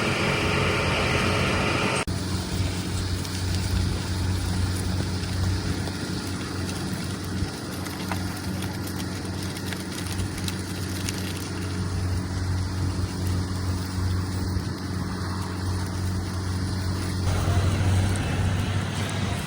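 Heavy diesel vehicle engine running steadily with a low hum, the sound cutting abruptly to a different take about two seconds in and again near the end.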